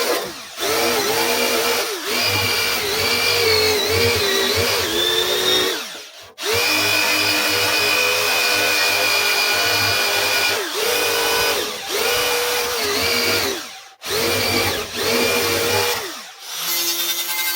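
Electric power tool motor running in several bursts, its pitch dipping and recovering again and again as it is pressed against work, with short stops between runs. Music comes in near the end.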